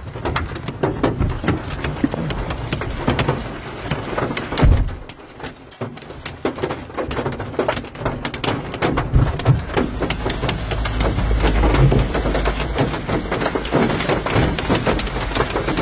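Rain pattering on the roof and windows of a car, heard from inside it as a dense, irregular run of small taps. A low rumble joins in the second half.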